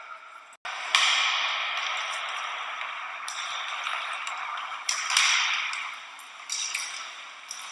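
Ice hockey game heard from the stands: sharp clacks and knocks of sticks, puck and boards over a steady rink noise of skates and crowd. The sound drops out briefly about half a second in, then comes back louder.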